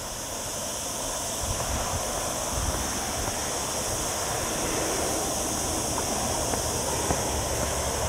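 Steady hiss of distant road traffic that slowly grows louder, over a continuous high drone of cicadas and a low wind rumble on the microphone.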